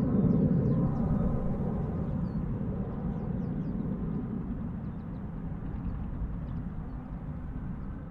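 Jet aircraft engine rumble, low in pitch, slowly fading away, with faint small bird chirps above it.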